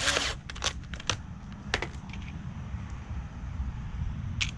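A few sharp metallic clicks and rattles from a drill's bit being swapped: the drill bit pulled from the chuck and a screwdriver bit put in. A steady low rumble sits underneath.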